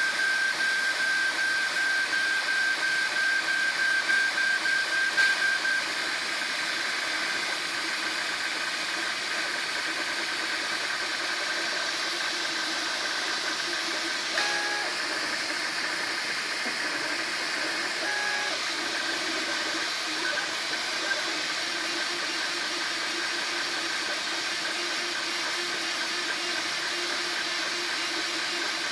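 Desktop FDM 3D printer running mid-print: a steady fan hiss with a high motor whine, which drops in level about six seconds in.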